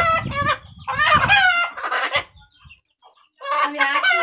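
Native Indian country chickens calling: a run of loud, high calls that stops a little past two seconds in and starts again about a second later.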